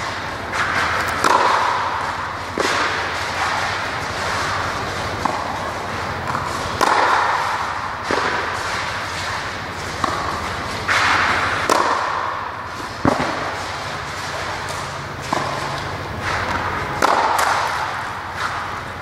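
Tennis balls struck with a racket and bouncing on an indoor clay court: sharp pops about every one to two seconds, over a steady rushing background noise.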